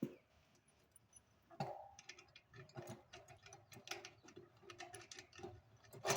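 Quick run of light, faint clicks and ticks from metal satellite-dish hardware being handled and fitted, starting about a second and a half in.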